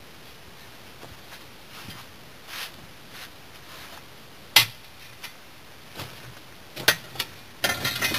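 Work noise in a dug-out bed of brick rubble and gravel: a single sharp knock about halfway through, as when a shovel is set down on brick, then a few clicks and a short run of scraping and clattering of gravel and brick pieces near the end as they are handled.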